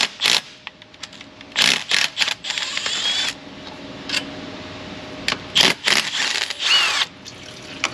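Thermostat housing bolts being taken out of a GM 3800 V6's intake: clinks and knocks of tool on metal, and two stretches of a small power tool running, each about a second and a half long with a short squeal as the bolt turns.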